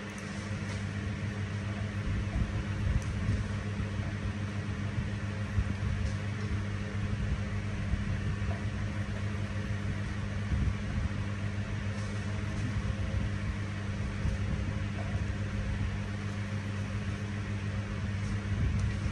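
Steady low electrical hum over an even hiss, with a few faint light taps of a stone pestle in a granite mortar.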